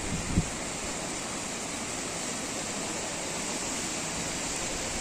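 Muddy floodwater rushing steadily through an overflowing stream channel, a continuous rushing noise. A brief low thump sounds about half a second in.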